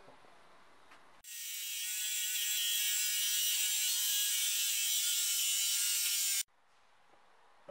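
Angle grinder with a cut-off disc cutting through a steel bicycle fork blade: a high whine with a rasping edge. It starts abruptly a little over a second in, swells over the first second, holds steady, and stops abruptly near the end.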